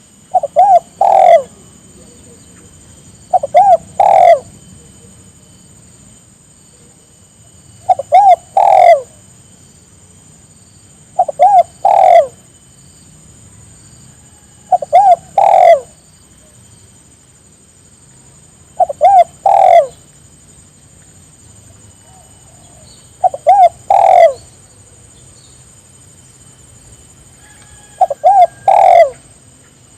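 Spotted dove (tekukur) cooing: a repeated phrase of two or three short coos followed by a longer, louder coo, given eight times at intervals of three to five seconds.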